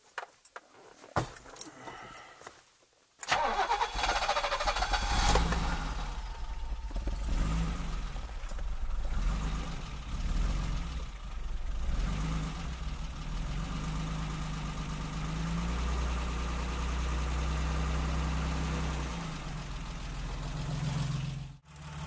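BMW 325i E30's 2.5-litre straight-six being started already warm: about three seconds in the starter cranks briefly and the engine catches, then it settles into a steady idle.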